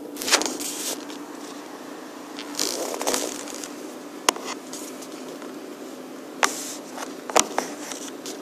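Short scraping, crackling rustles and a few sharp clicks, five or six in all, spread over a steady low hum.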